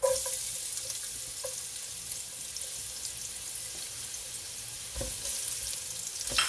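Julienned ginger hitting hot oil in a pot and sizzling steadily, the sizzle starting suddenly as it lands. A couple of light knocks from the spatula against the pot near the end.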